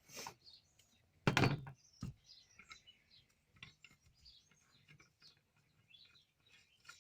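Birds chirping faintly and intermittently, with one loud clunk about a second in and a couple of lighter clicks.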